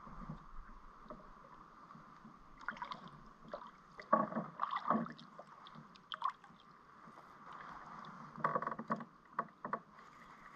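Water sloshing against a fishing kayak's hull, with two bursts of knocking and sloshing about four seconds in and again about eight and a half seconds in.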